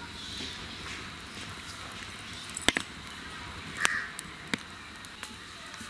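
Wood fire crackling under an iron griddle, with a few sharp pops, and a crow cawing once about four seconds in.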